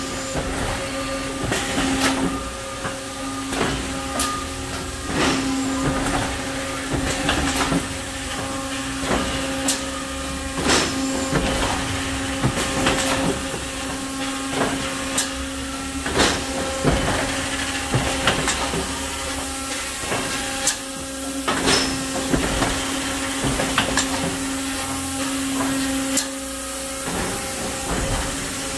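Thermoforming production machinery running: a steady hum under frequent, irregular clanks and clicks.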